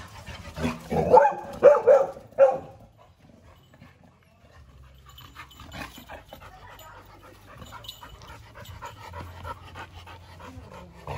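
Labrador retrievers playing: a few short dog vocalizations about a second in, then steady panting with quick light scuffling.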